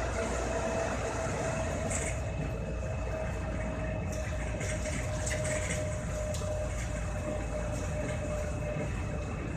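Inside a moving KLIA electric airport train: a steady running rumble with a constant whine at one pitch, and a few faint light rattles about halfway through.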